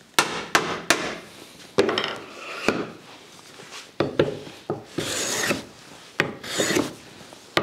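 Several sharp wooden knocks as a board is set against a bench stop, then a hand plane taking short strokes along the board, each a brief scraping hiss of cut shavings, about five seconds in and again a second and a half later.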